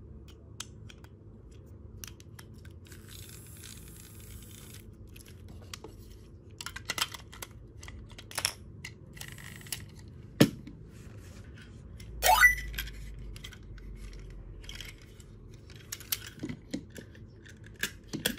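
Plastic clicks and rattles of a toy train being handled: a AAA battery pushed into a battery-powered motor chassis and a plastic body shell pressed onto it, with one sharp snap about ten seconds in. A short rising squeak follows a couple of seconds later, then more scattered clicks.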